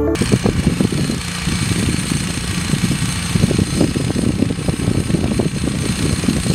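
A small engine running, its sound rising and falling unevenly in quick, rough pulses.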